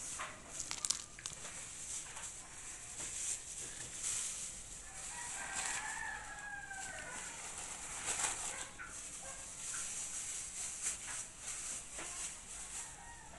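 A rooster crowing once, one long arching call about five seconds in, over intermittent crinkling of thin plastic bags being handled.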